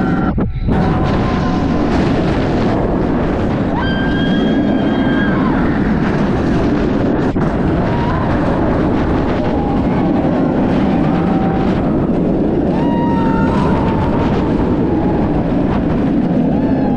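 Kumba steel roller coaster train running at speed through its elements, heard from the front seat: a loud, steady rush of wind over the microphone and the rumble of the wheels on the track. Brief high-pitched whines come and go.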